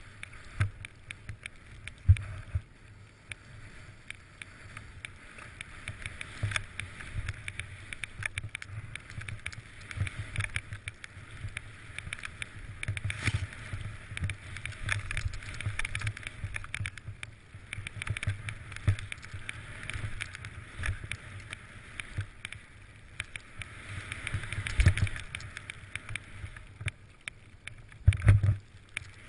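Skis hissing and swishing through deep powder snow on a descent through trees, with frequent knocks and thumps on the body-mounted camera as the skier turns over bumps; the loudest thumps come about two seconds in and near the end.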